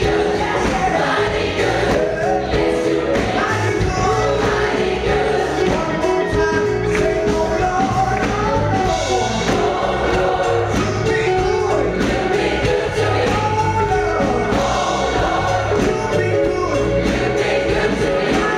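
Large gospel choir singing with a live band, piano and drums under the voices, in a hall.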